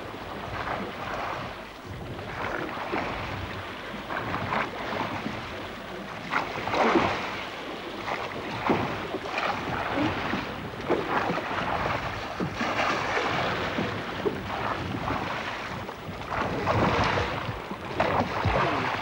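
Open whaleboat being rowed at sea: water rushing and splashing around the hull and oars in surges every second or two, with wind on the microphone.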